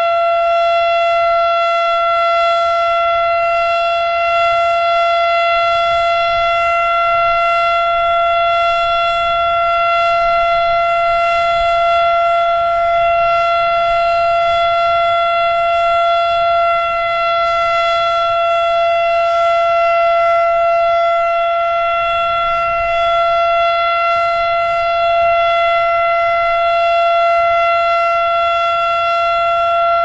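Erick Electric outdoor warning siren sounding the steady alert signal on test: one loud held pitch with overtones that does not rise or fall, its level swelling and dipping slightly.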